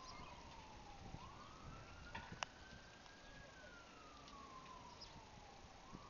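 A faint siren wailing slowly, its pitch falling, then rising again from about a second in and falling once more near the end. A sharp click cuts in about two and a half seconds in.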